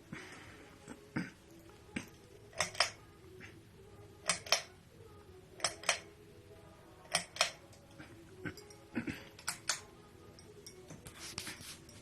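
A 29-inch Quorum Capri ceiling fan running with a faint steady hum, and a pair of sharp clicks repeating about every second and a half.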